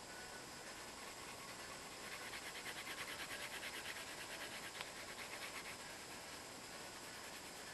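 Rapid back-and-forth scratching of a colouring tool on paper, at about five or six strokes a second, starting about two seconds in and stopping near six seconds, with a single light tap near the end of the run. A faint steady hiss lies underneath.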